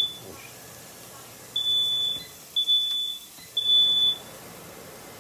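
Smoke detector alarm sounding: three high-pitched beeps about a second apart, starting about one and a half seconds in, part of its repeating three-beep pattern. The alarm has been set off by smoke from cooking.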